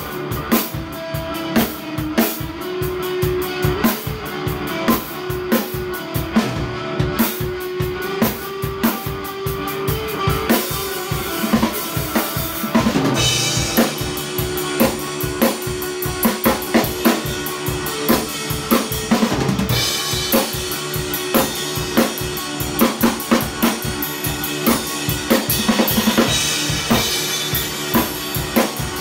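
Drum kit played with sticks in a busy groove, with kick drum, snare and cymbals, alongside a sustained electric guitar line.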